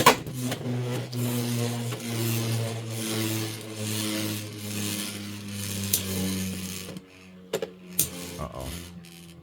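Two Beyblade X tops spinning in a plastic stadium: a steady whirring hum with scraping and clattering as they grind against each other. About seven seconds in the noise drops to a quieter hum, and two sharp clacks of hits follow.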